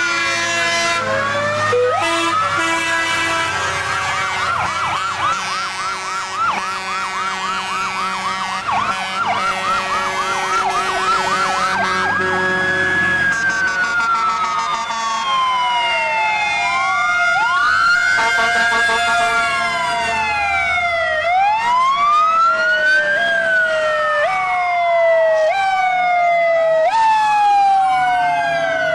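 Several fire truck sirens sounding together as a caravan of trucks passes. A fast warbling yelp runs for the first ten seconds or so, with steady held tones at the start, then slow rising and falling wails overlap one another toward the end.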